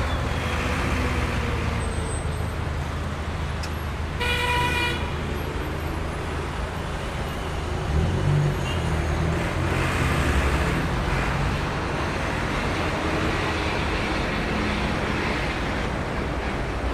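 Traffic jam: a steady rumble of idling and creeping car and truck engines with road noise, and one car horn sounding for about a second about four seconds in.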